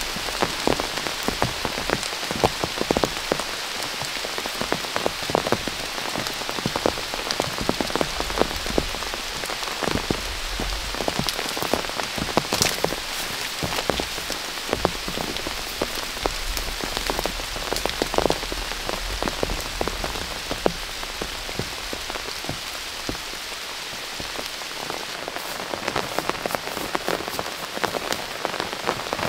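Heavy rain falling steadily, with many single drops striking close by as distinct sharp ticks over the hiss of the downpour.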